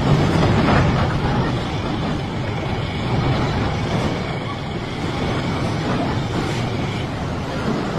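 Steady low rumbling roar of a flooded river's fast brown current.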